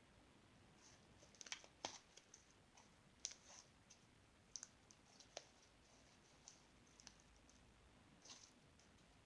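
Faint, irregular small clicks and taps, about a dozen, with the loudest ones between about one and a half and three and a half seconds in.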